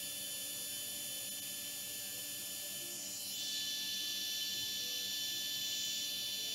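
blö micro cooling fan running with its soft mesh removed: a steady high-pitched whine of several tones over an airy hiss. About three seconds in the hiss grows louder and stays so.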